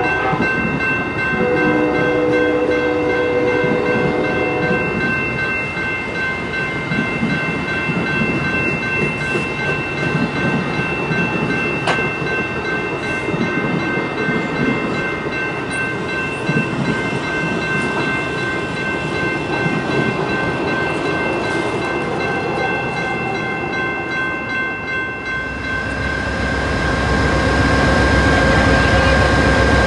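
Bilevel passenger cars rolling past a grade crossing, with wheels clattering on the rails under the crossing warning bell's steady ringing. About 25 s in, the sound shifts to the deeper rumble of an arriving GE P42DC diesel locomotive.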